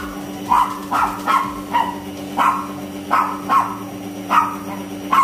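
A small puppy yapping in a run of short, sharp barks, about two a second.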